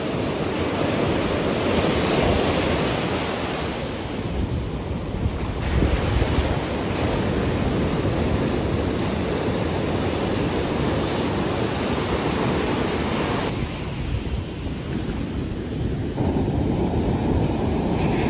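Heavy hurricane-swell surf breaking and washing in, with wind buffeting the microphone. The sound changes abruptly a few times.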